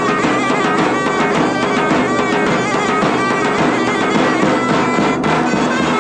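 Loud traditional folk dance music: a wind instrument plays a held, ornamented melody over a steady drum beat.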